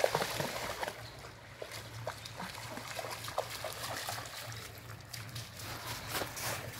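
Dog wading through shallow river water, its legs making a run of small splashes over the stream's trickle.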